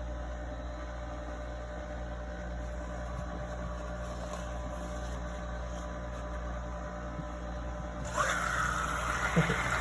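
Steady electrical hum of a KitchenAid dishwasher. About eight seconds in, a hiss of water flowing starts, with a small knock shortly after.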